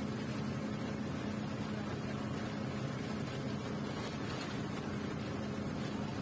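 A South Bengal State Transport Corporation express bus under way: its engine drones at a steady pitch over an even rush of road and tyre noise.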